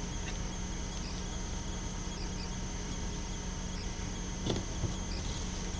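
Quiet room tone: a steady hiss with a constant low hum and a faint high-pitched tone, and a brief faint sound about four and a half seconds in.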